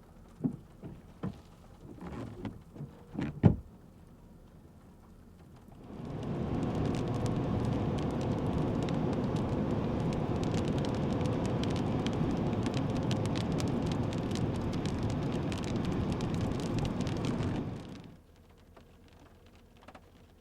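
Heavy rain from a thunderstorm beating down hard, starting suddenly about six seconds in and cutting off abruptly about twelve seconds later. A few sharp knocks come in the first few seconds.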